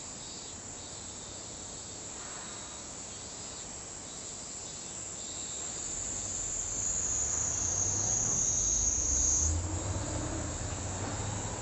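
Kaempfer cicada (niiniizemi) song: a continuous high, thin buzz that swells in the second half and then cuts off suddenly. A low rumble rises beneath it over the same stretch.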